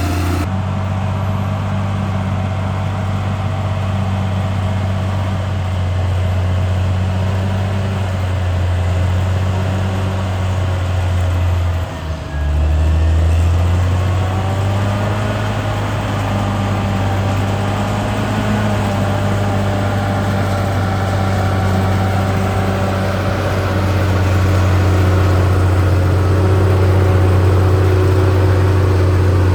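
Caterpillar D6R XL bulldozer's diesel engine running steadily with a deep hum, dropping out for an instant about twelve seconds in and growing a little louder near the end.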